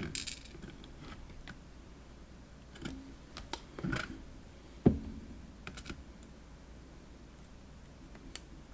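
Small scattered clicks and taps of lock key pins being handled and set down in a pin tray, with one sharper click about five seconds in.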